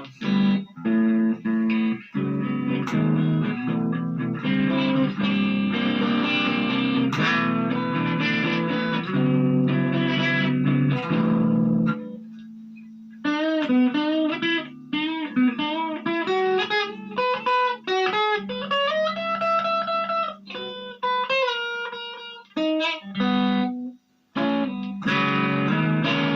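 Electric guitar played through a Marshall MG15GFX 15-watt combo practice amp, effects and reverb off and the gain just turned down a little. Chords ring for about twelve seconds, then a single-note melody with bent notes follows, and chords come back near the end.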